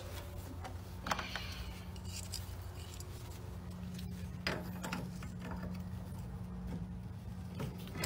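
Small clicks and rubbing of metal valve fittings being worked by hand as the service ports on a tankless water heater's isolation valves are opened, with a few sharper clicks, over a steady low hum.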